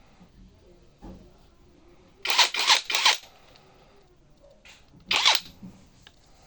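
Impact wrench fired in short trigger bursts: three quick ones close together, then one more about two seconds later.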